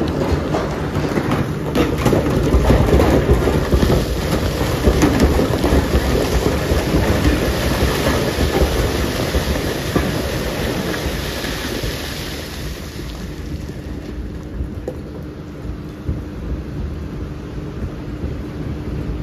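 Iron ore rumbling and clattering as it is crushed in a 1600 TPH Kobelco gyratory crusher. The sharp crackle and hiss of tumbling rock die away about thirteen seconds in, leaving a lower rumble with a faint steady hum.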